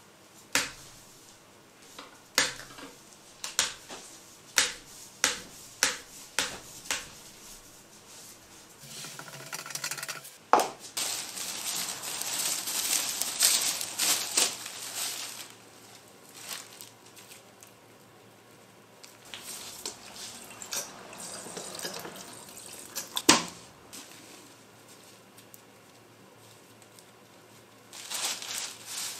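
A run of light, sharp knocks, roughly two a second, then several seconds of rustling and scraping, with one more sharp knock later on: hand work with parts on a workbench.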